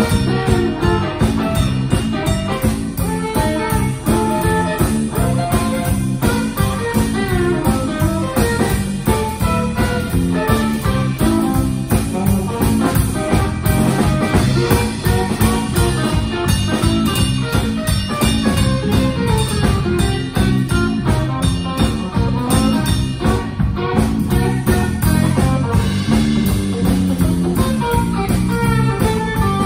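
Live band of electric guitar, electric bass and drum kit playing an instrumental passage, with no singing.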